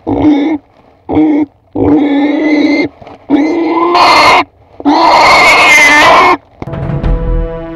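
A pig squealing loudly five times in quick succession, the last two squeals the longest and most piercing. Electronic music begins near the end.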